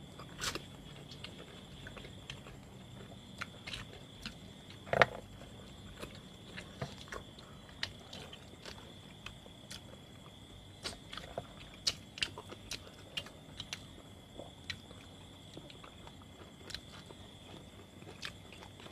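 Chewing and crunching of crispy grilled rat: scattered sharp crunches and mouth clicks, the loudest about five seconds in, over a faint steady high tone.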